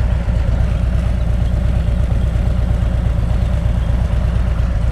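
Motorcycle engine idling steadily, its sound mostly low-pitched.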